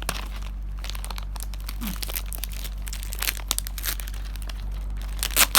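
Plastic packaging crinkling and crackling as it is handled and opened by hand, in irregular small crackles with a couple of louder sharp clicks near the end.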